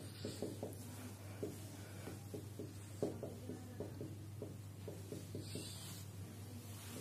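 Whiteboard marker writing on a whiteboard: short, irregular squeaking and tapping strokes as words are written out, over a steady low hum.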